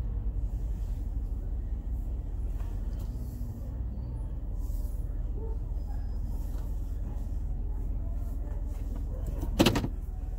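A car engine idling, heard inside the cabin as a steady low rumble. A single short, sharp clunk comes near the end.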